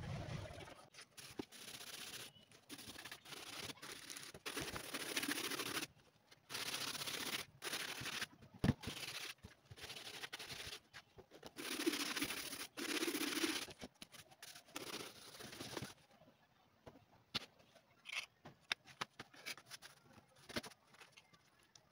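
Scratchy rubbing and scraping from hand work on leather, in strokes lasting one to two seconds with short pauses, and a sharp click about nine seconds in. From about two-thirds of the way through it gives way to quieter scattered clicks and taps.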